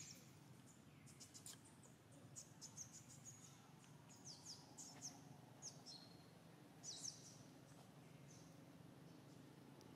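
Faint forest ambience: scattered short, high chirps, a few sweeping downward, over a low steady hum.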